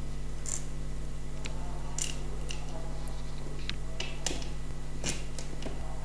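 Scattered small clicks and light scrapes of a screwdriver and small screws being handled against a black acrylic frame while a screw is fitted into its hole, about half a dozen sharp ticks over a steady low hum.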